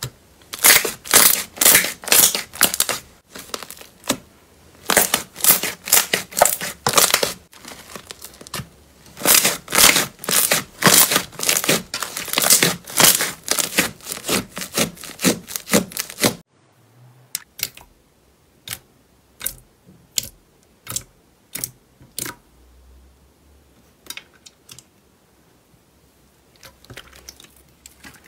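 Slime squished and kneaded by hand, crackling and popping with trapped air in rapid, repeated bursts. About sixteen seconds in it changes abruptly to sparser, single sharp pops and clicks, which die away to a faint squish over the last few seconds.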